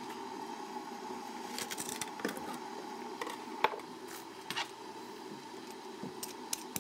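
Kitchen clatter: scattered short clicks and clinks of a knife on a cutting board and other utensils over a steady room hum, the sharpest click about three and a half seconds in.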